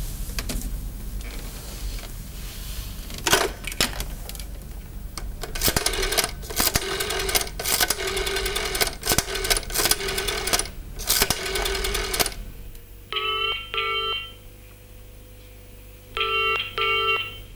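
Telephone ringing for several seconds. Then, with the handset off its cradle, a pitched double-ring tone sounds twice, about three seconds apart, the ringing tone heard on the line.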